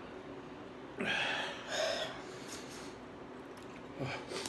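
A man eating very spicy noodles takes two quick, noisy breaths about a second in, a reaction to the chilli heat, with a faint mouth sound near the end.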